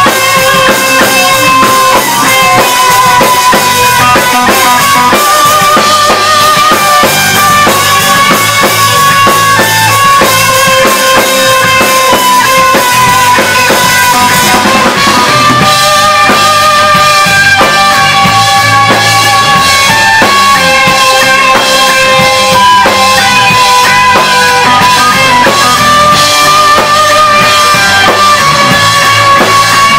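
Live band playing an instrumental passage: a drum kit keeps a steady beat under electric guitar, with a sustained lead melody line that wavers slightly as it holds its notes.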